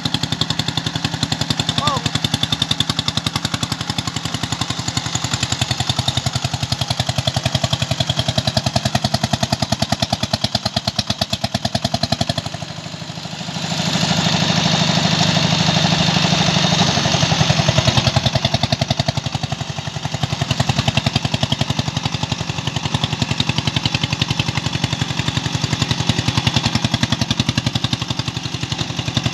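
Single-cylinder diesel engine of a two-wheel walking tractor running with a rapid, even chugging as the tractor labours and bogs down in paddy mud. The sound drops briefly about halfway through, then runs louder for a few seconds before settling back.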